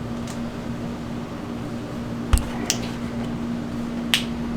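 Hot candy being hand-pulled on a candy hook: a few short, soft, squishy slaps and a thud, about two seconds in and again near the end, over a steady low hum.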